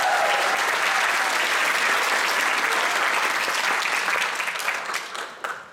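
Applause from a crowd of many people, the seated band members clapping among them, dying away near the end.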